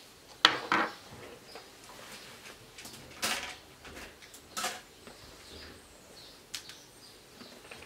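Handling noise from taking apart a laptop: a handful of short plastic knocks and clatters as the removed keyboard is put aside and screwdrivers are set down and picked up, the two loudest just after the start.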